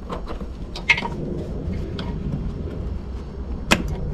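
A few sharp plastic clicks and knocks as the wiring connectors are unplugged from the back of a Smart Fortwo headlamp and the plastic lamp housing is handled, the loudest near the end, over a steady low rumble.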